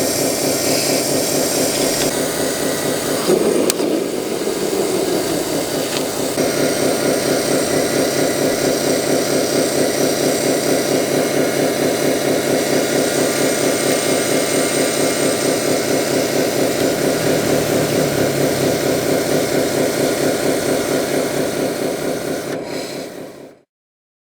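Radio-controlled scale construction machine running: a steady, rapidly pulsing engine-like drone, with a single knock about three and a half seconds in. It cuts off abruptly near the end.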